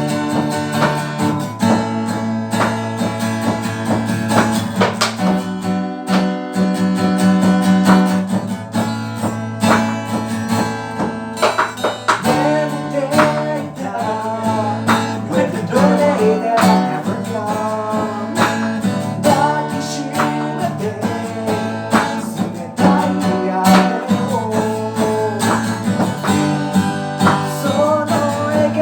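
Band playing an instrumental passage between sung lines: guitar over a drum beat, with wavering held notes.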